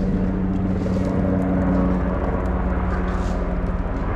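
An engine running at a steady speed, a low, even drone.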